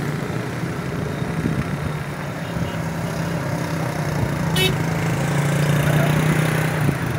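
Engines of cars and motorcycles driving past at low speed, with a steady low engine hum throughout that gets slightly louder near the end. A brief sharp click about four and a half seconds in.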